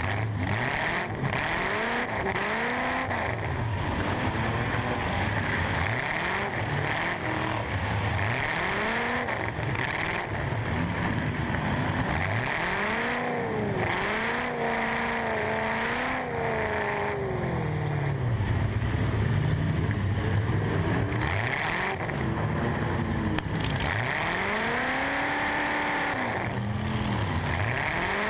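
Eight-cylinder truck engine heard from inside the cab, revving up and falling back again and again every couple of seconds as the truck drives back and forth, with a few brief knocks along the way.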